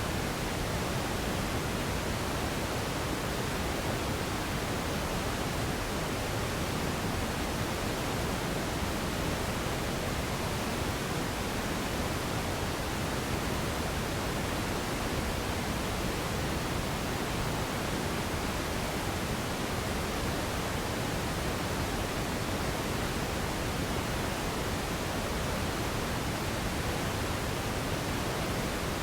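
Steady radio static: an even hiss with no tones, voices or breaks, unchanging in level.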